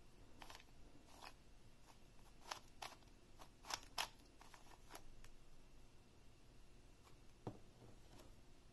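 Soft, scattered clicks of the plastic layers of a QiYi 2x3x3 cuboid puzzle being turned by hand, a little louder about four seconds in.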